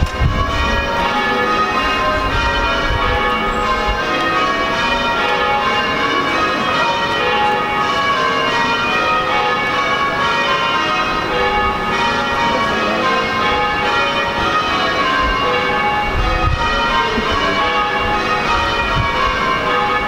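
Tower bells ringing in changes: many bells struck one after another, their ringing tones overlapping into a continuous peal at an even loudness.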